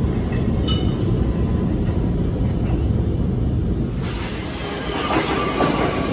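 New York City subway trains in an underground station: a steady low rumble as a train runs off down the track, with a brief high ring about a second in. Near the end, a louder clatter of wheels as a J train rolls along the platform.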